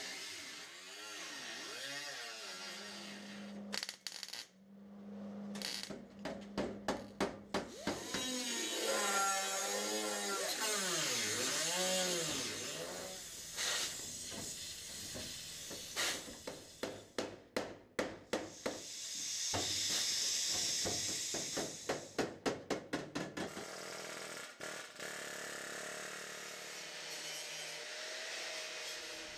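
Power tools working sheet steel during car-body fabrication: a cutting tool runs in stretches with a hissing sound, broken by several runs of quick, regular sharp taps of about five a second.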